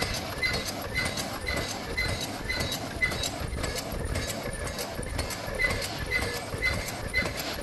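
Zipper-bag cutting machine running, its cutter clacking about twice a second with a short high ring at each stroke, over a steady mechanical hum.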